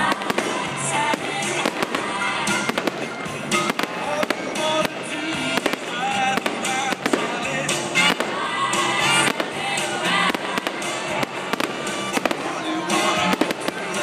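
Aerial firework shells bursting one after another, a dense run of sharp bangs and crackles, with music playing alongside.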